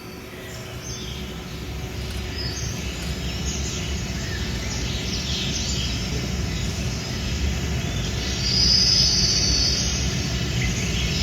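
Rainforest ambience recording: birds chirping and calling over a steady low rumble that slowly grows louder, with one loud high-pitched call lasting about a second and a half near the end.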